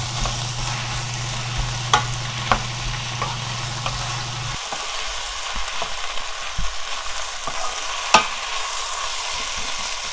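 Fish cake, shishito peppers, onion and carrot sizzling in oil and soy sauce in a frying pan as a wooden spoon stirs them, with a few sharp clicks of the spoon against the pan. A low steady hum underneath stops about halfway through.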